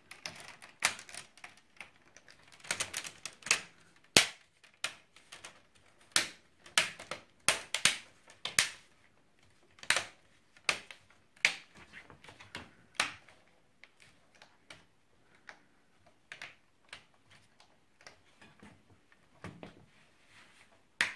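Plastic snap clips of an HP 15-F039WM laptop's screen bezel clicking into place as the bezel is pressed on around the screen's edges: a long, irregular series of sharp clicks, some quite loud, thinning out in the second half.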